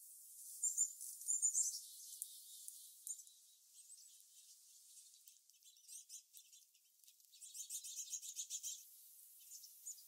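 Small songbirds calling: a few sharp high chirps about half a second to a second and a half in, scattered single notes after, and a rapid run of high twittering notes about three quarters of the way through.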